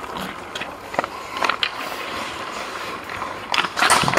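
A Nexus hockey stick blade handling a puck on the ice: sharp clacks of stick on puck and blade scraping the ice, a few single clacks at first and a quick busy run of them near the end as the stick winds up.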